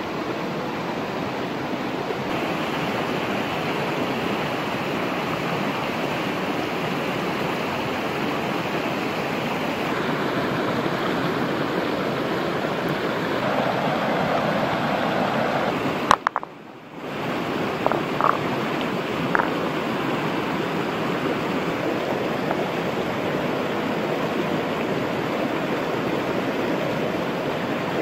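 Stream water rushing steadily over rocks. About halfway through the sound cuts out briefly, and a few light clicks follow.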